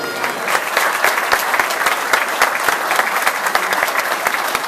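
A large audience applauding, with one person's claps loud and close among the dense clapping of the crowd.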